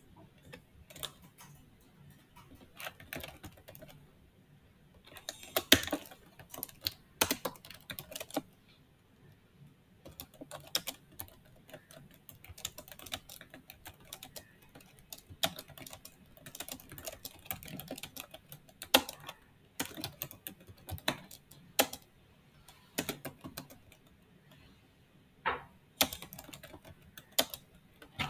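Typing on a computer keyboard: irregular keystrokes in quick runs with short pauses between words.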